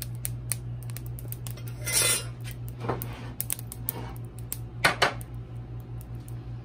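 Metal spoon knocking and scraping against a cooking pot while stirring whole spices toasting in it: scattered clinks, a short scrape about two seconds in and two sharper knocks near the end, over a steady low hum.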